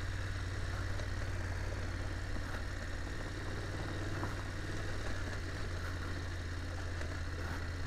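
BMW F850GS Adventure's parallel-twin engine running at a steady, unchanging note as the motorcycle rides along a gravel trail.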